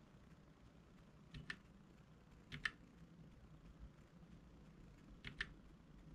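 Keys of a Keychron K3 low-profile mechanical keyboard with Gateron Red linear switches being pressed one at a time: three separate double clicks, each a key going down and coming back up, at about one and a half seconds, two and a half seconds and five seconds in, over a faint room hush.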